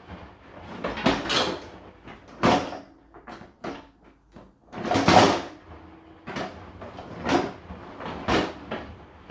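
Dishes clattering and the racks of a Whirlpool WFO3P33DLXUK dishwasher sliding as it is loaded: a string of irregular clunks and rattles, the loudest about five seconds in.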